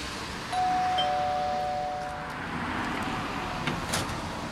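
Two-note doorbell chime: a higher note then a lower one ringing together and fading away. A couple of sharp clicks near the end as the front door is opened.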